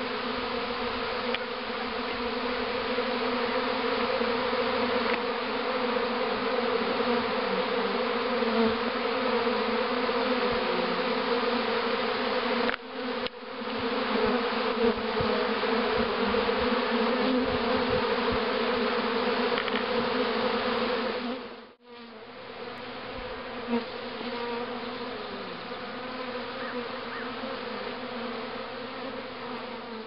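A honeybee swarm in flight: thousands of bees buzzing together in a dense, steady hum. It breaks off briefly twice and is a little quieter after the second break.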